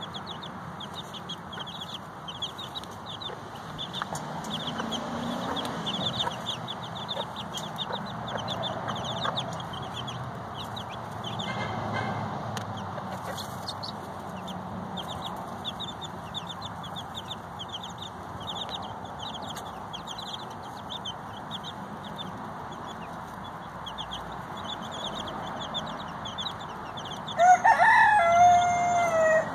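Chicks peeping in a steady stream of quick high chirps, with the Cochin bantam mother hen clucking low now and then. Near the end a rooster crows loudly for about two seconds.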